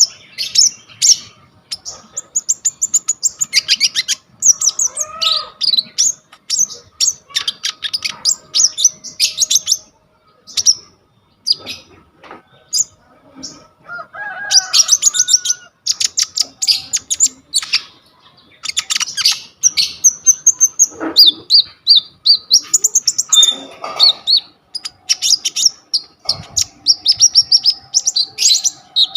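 Konin singing a fast, chattering song of high chirps and trills packed with mimicked phrases from other birds, in long runs broken by short pauses.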